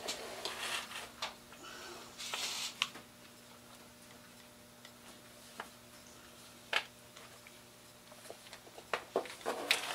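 Scattered light clicks and taps with brief rustling as tools and small parts are handled while hot-gluing pieces into a wooden LED sign base, over a faint steady hum. A few sharp clicks come a second or more apart, with a quick cluster of taps near the end.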